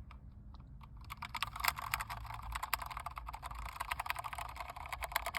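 Rapid typing on a computer keyboard: a dense, irregular run of key clicks that starts about a second in.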